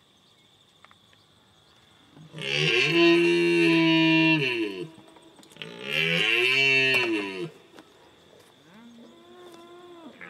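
Long, drawn-out animal calls: two loud ones of about two seconds each, then a few fainter, shorter calls near the end.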